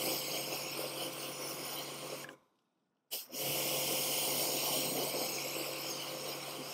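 Pressure washer running and spraying water, rinsing dirt out of a car-wash pad: a steady hiss over a low motor hum, in two spells with a brief stop about two and a half seconds in.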